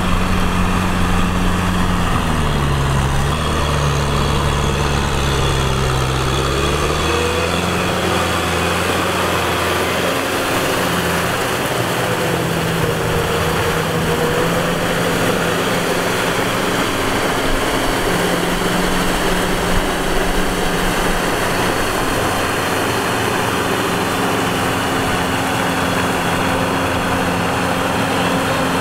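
Tractor diesel engine running steadily under load while pulling a rotavator through flooded paddy mud. The engine note drops about two seconds in and climbs back a few seconds later.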